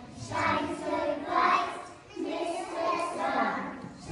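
A group of young children singing a song together, in two phrases with a short break about halfway through.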